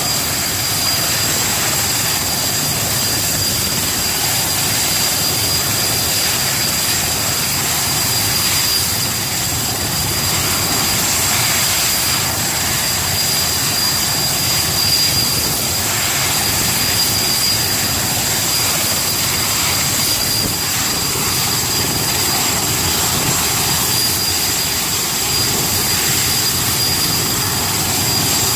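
Erickson S-64 Air-Crane helicopter running steadily: twin turboshaft engines with a steady high turbine whine over a continuous rush of engine and rotor noise.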